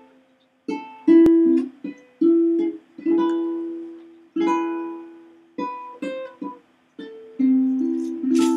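Live acoustic music: a plucked string instrument picking out an intro of single notes and chords, each struck sharply and then ringing out and fading, with short gaps between phrases.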